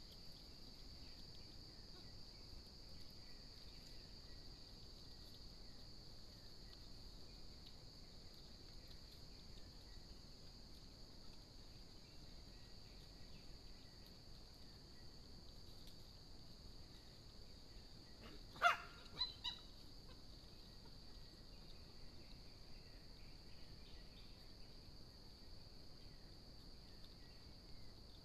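Quiet outdoor ambience dominated by a steady, high-pitched insect chorus. About two-thirds of the way through there is one short, sharp sound, quickly followed by two quieter ones.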